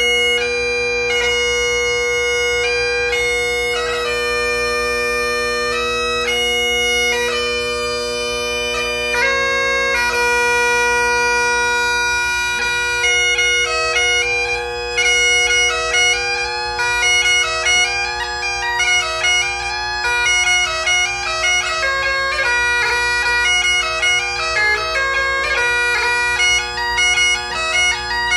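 Great Highland bagpipe played solo: a steady drone under the chanter melody. The tune moves in long held notes at first, then from about twelve seconds in turns quicker, with short clipped notes and rapid ornaments.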